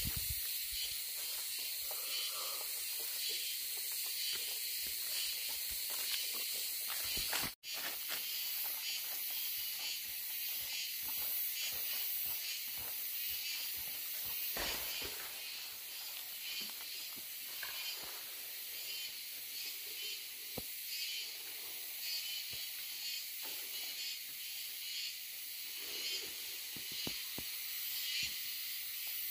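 Gas cutting torch hissing steadily, cutting out for an instant about seven and a half seconds in.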